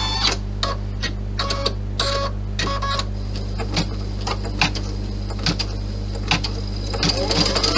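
Computerised embroidery machine working on a hooped panel: a steady low hum with short whirring clicks every half second or so as the embroidery arm steps the hoop, then the motor speeds up with a rising whine about seven seconds in as it starts stitching faster.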